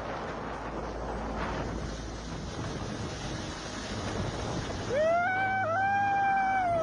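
Steady rushing noise of wind and wind-driven river ice and water. About five seconds in, a loud, high held tone with overtones rises, holds for about two seconds and falls away.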